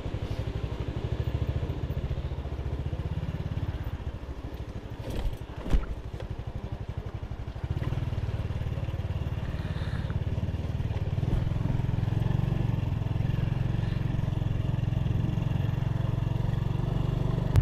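Motorbike engine running steadily while riding, with rapid even firing pulses. One sharp knock comes about six seconds in, and the engine gets louder about eight seconds in.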